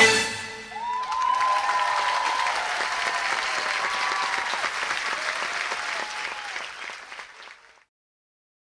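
The music ends on a final note, then a theatre audience applauds with a few cheering shouts. The applause fades and cuts off to silence near the end.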